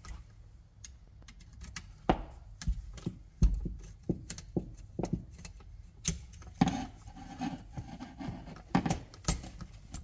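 Screwdriver working the terminal screws of a 220 V dryer outlet to free its wires: scattered small metal clicks and knocks, the sharpest about three and a half seconds in.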